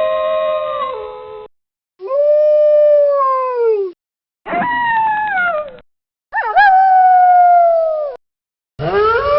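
Wolves howling: a run of long single howls one after another, each held on a steady pitch and sliding down at its end. Brief, abrupt dead silences separate them.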